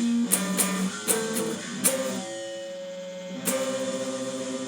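Guitar chords struck one after another in a short riff, then a chord struck about three and a half seconds in and left ringing: a higher, brighter voicing of a C chord tried out by ear, which doesn't match the recording.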